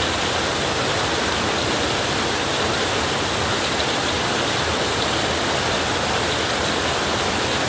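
Heavy rain on a tin roof, a steady dense hiss with no let-up.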